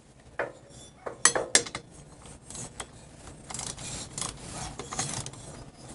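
Small metal clicks and a scraping rasp as bolts are fitted by hand to a cylinder head of a Harley-Davidson flathead engine: a few sharp clicks in the first two seconds, then a longer rasping scrape.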